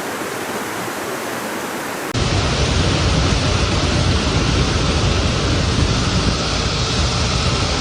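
A steady rush of water noise. About two seconds in it cuts abruptly to a louder, deeper rush with more rumble, which holds steady.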